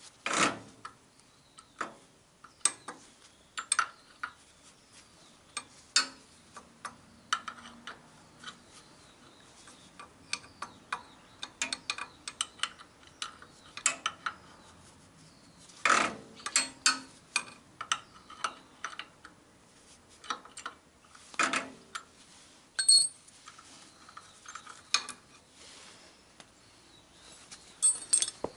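Wrench clicking and clinking on the steel bolts of a crop sprayer's caster wheel mount as the caster is unbolted: irregular metal ticks and clinks, with a few louder knocks and one short metallic ring.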